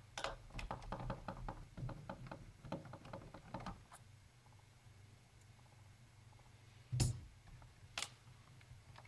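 Small clicks and light taps of hand work on a netbook's screws and plastic case, a flurry of them over the first few seconds, then two sharper knocks about a second apart near the end.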